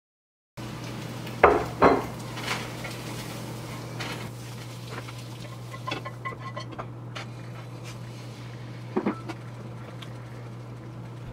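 Kitchen clatter of pans, plates and utensils being handled at the stove: scattered sharp clinks and knocks, the loudest two close together about a second and a half in and another pair around nine seconds, over a steady low hum.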